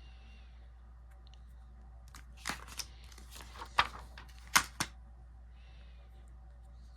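Paper rustling and tapping as book pages are handled and turned: a cluster of about six short, sharp rustles and clicks a few seconds in, over a low steady room hum.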